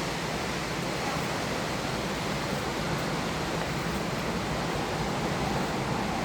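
Multnomah Falls' water falling, a steady, even rushing noise with no breaks.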